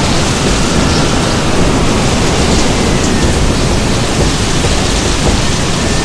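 Hurricane-force wind, given as 50 m/s, as a sound effect: a loud, steady rush of noise with a faint high whistle that drifts slightly in pitch.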